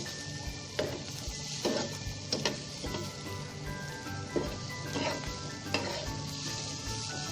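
Mashed pumpkin-peel bharta sizzling in oil in a nonstick frying pan while a spatula stirs it, with a steady hiss and about eight uneven scrapes of the spatula against the pan.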